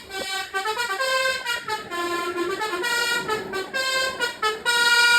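Bus 'telolet' musical air horn playing a tune: a quick run of short horn notes stepping up and down in pitch, ending on a longer held note.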